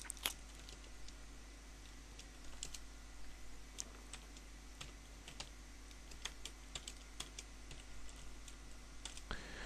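Faint, irregular keystrokes on a computer keyboard, typed in short runs with pauses between them.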